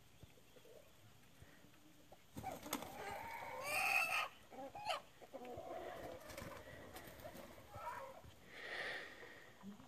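Farmyard fowl calling: a loud, drawn-out call about four seconds in, then shorter calls through the rest.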